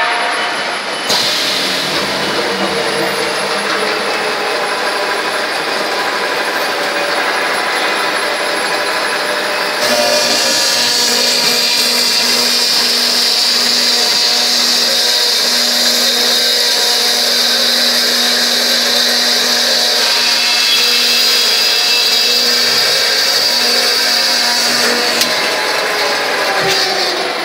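Pipe mill's circular cut-off saw running on a welded steel tube, over the steady noise of the mill. About ten seconds in it grows louder, with a high steady whine and a low hum that last until near the end.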